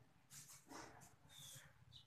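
Near silence with a few faint squeaks and ticks of a marker writing on a whiteboard.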